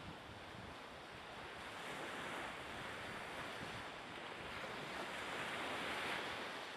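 Rushing sea water and wind: a steady hiss of waves and spray that swells slightly about two seconds in and again about six seconds in.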